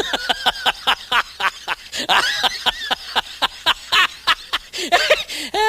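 High-pitched laughing: a quick run of short, pitched bursts, several a second, with a few longer wavering notes partway through.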